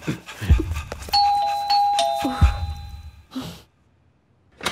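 Electronic doorbell chiming two quick ding-dongs, each a higher note stepping down to a lower one, with the chime fading out over about a second. Heavy thuds of hurried movement come just before and just after.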